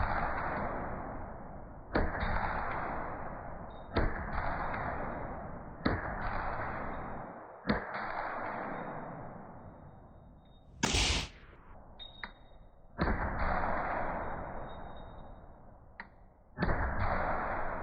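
A series of heavy booms, mostly about two seconds apart with a longer gap in the middle, each ringing out slowly. A short hiss comes about halfway through.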